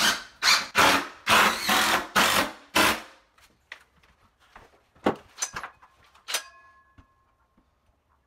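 Rhythmic back-and-forth strokes of a hand tool working a wooden board, about three strokes a second, stopping about three seconds in. After that come a few light knocks and a tap that rings briefly.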